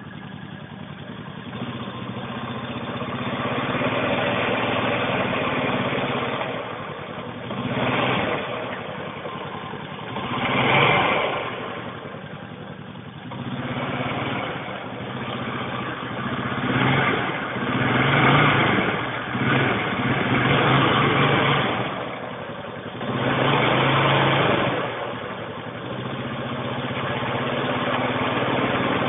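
2002 Honda Rubicon 500 ATV engine running in neutral, revved up and let back down about six times. It carries an unidentified noise from the left side of the engine that the owner cannot place.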